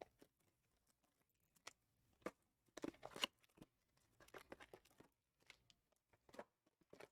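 Faint crinkling and tearing of trading-card packaging, with scattered light clicks and taps, as a box of football cards is opened by hand.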